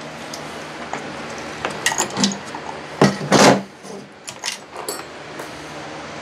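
Metal hand tools and chainsaw parts clinking and knocking during hands-on disassembly, with two louder knocks about three seconds in. A steady low hum runs underneath.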